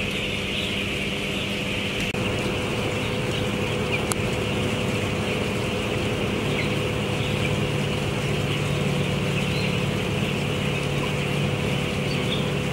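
Steady machine hum of poultry-house ventilation fans under a dense, continuous chorus of high peeping from thousands of two-week-old broiler chicks.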